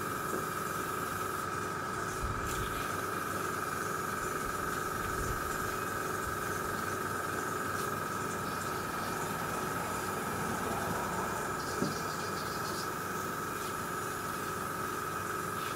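Airbrush spraying thinned matte-black enamel paint with a steady hiss of air, over the steady high-pitched whine of its air compressor.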